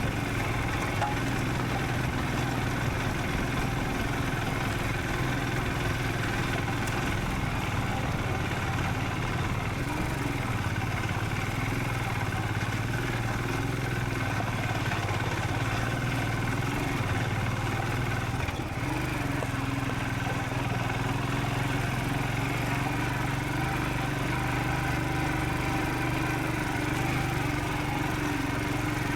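Royal Enfield Scram 440's single-cylinder engine running at a steady, even speed while the motorcycle is ridden.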